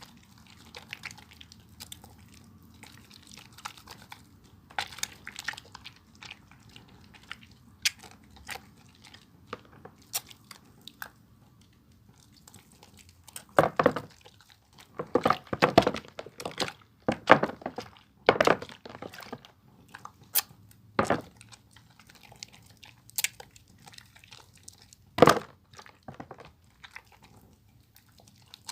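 A bar of soap being lathered close to the microphone: wet squishing and crackling strokes with small clicks, sparse at first, then a run of loud strokes about halfway through and one more sharp one near the end.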